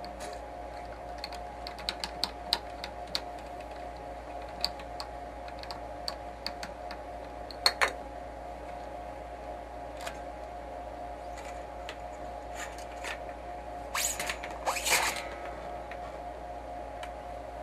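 Light clicks and ticks of guitar strings being taken off, with a sharper click about eight seconds in and two short scraping rasps near the end, over a faint steady background tone.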